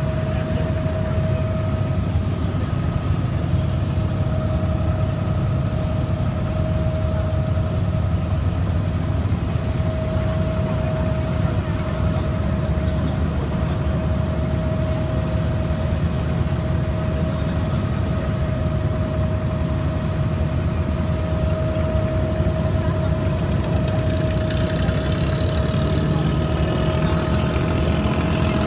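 Abra water taxi's inboard diesel engine running steadily, heard from aboard: a constant low rumble with a steady hum-like tone above it.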